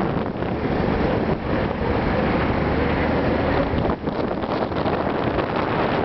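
Wind buffeting the microphone on a moving motorbike: a loud, steady rush of noise, with a faint low engine hum showing through for a couple of seconds in the middle.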